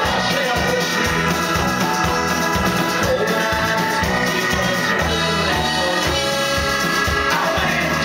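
Live rock band playing a song: acoustic and electric guitars, keyboard and drums, with a steady beat.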